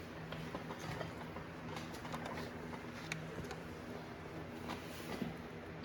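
A steady low hum with faint scattered clinks from transmission parts and tools being handled, then one sharp metallic clank just before the end.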